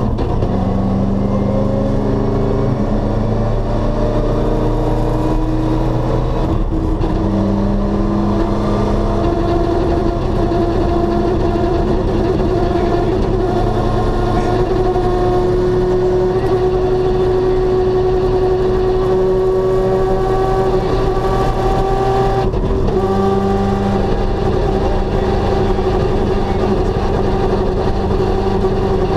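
Rally car engine heard from inside the cabin while driving on the road, pulling steadily with its pitch rising slowly. There is a gear change about seven seconds in and another about twenty-two seconds in, and the pitch drops back each time.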